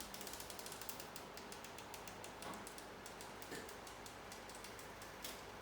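A quick run of small, sharp mechanical clicks, dense at first and thinning out after about three seconds, like a small plastic mechanism being fiddled with.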